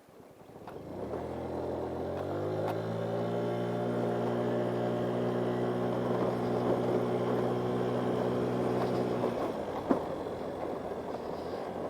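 GY6 50cc scooter's single-cylinder four-stroke engine revving up over a couple of seconds, then held at a steady high pitch under throttle before dropping away about nine seconds in. A single sharp click follows shortly after.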